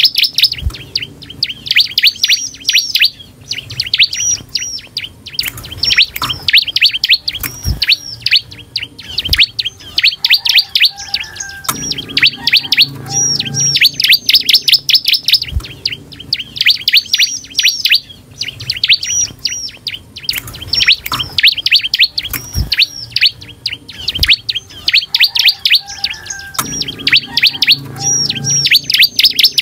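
Bar-winged prinia (ciblek) singing vigorously: bursts of rapid, sharp chirps, each burst a second or two long and repeated over and over with short gaps. A few sharp knocks sound now and then between the phrases.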